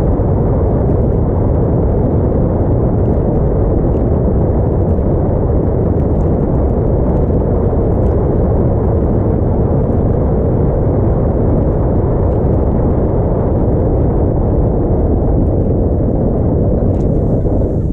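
Wind buffeting the microphone on a motorboat running at speed over choppy water: a steady, loud low rumble.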